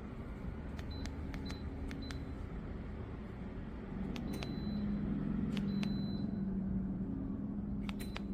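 A series of sharp clicks, several followed by a short high electronic beep, like the buttons on an appliance's control panel being pressed. Under them is a low steady hum that grows louder about four seconds in.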